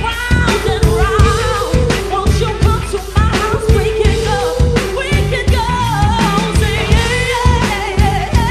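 Live performance of a pop-soul song: vocals with vibrato over a band with a steady drum beat.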